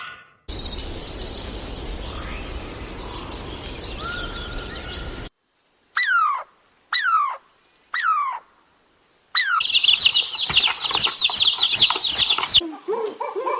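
Birds calling in a run of short, separate recordings. First come scattered chirps over a steady background hiss. Then three separate calls, each falling in pitch, then a few seconds of dense, high-pitched chirping, and near the end lower calls that rise and fall.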